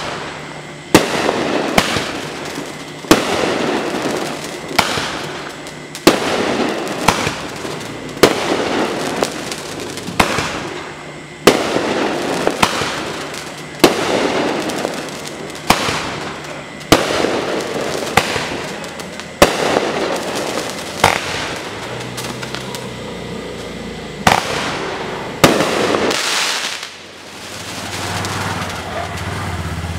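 Pyro High 'Cotton Mouth' 500-gram 18-shot fan cake firing its shots one after another, roughly one every second or so: each a sharp report followed by a fading hiss. The shots end a few seconds before the end.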